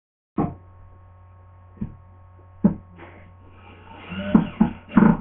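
Steady electrical hum with a handful of sharp knocks and bumps, the last few coming close together near the end.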